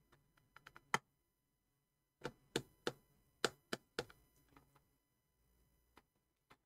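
Short, sharp clicks and taps from a screwdriver and a laptop battery being handled as the battery is pressed into the laptop chassis and screwed down; a few small ticks, then a quick run of six or seven clicks a couple of seconds in, and two faint ones near the end.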